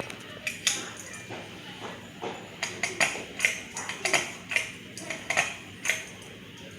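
A run of short, light clinks and taps, about ten in a few seconds at an uneven pace, over a faint low steady hum.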